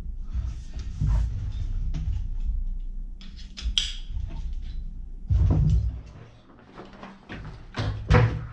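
Aqua Lung Rogue BCD being handled: its nylon straps and plastic buckles rustle, scrape and click, with several dull thumps as the jacket is moved about.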